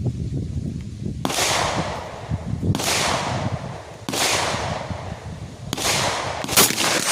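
AR-15 rifle chambered in 350 Legend firing five shots, about one every second and a half with the last two closer together. Each shot is followed by a trailing echo.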